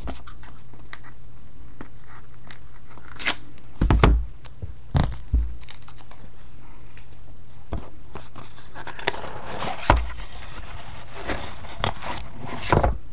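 A trading-card box being opened by hand: wrapping tears and crinkles, with several sharp knocks of the box and its contents against the table.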